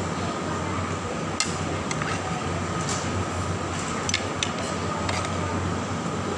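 Eating at the table: a few short clicks and clinks of crab shell and dishes as crab is picked apart by hand, over a steady low hum.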